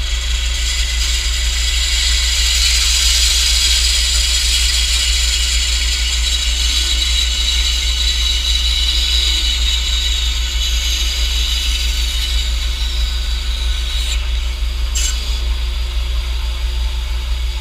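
Bandsaw running with a steady motor hum while its blade cuts through the wooden neck block of a mandolin, the higher cutting noise strongest in the first half and easing off after the middle. Two sharp knocks near the end.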